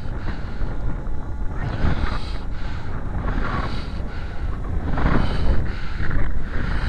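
Strong wind buffeting the microphone in uneven gusts, with the faint whine of a radio-controlled plane's motor underneath.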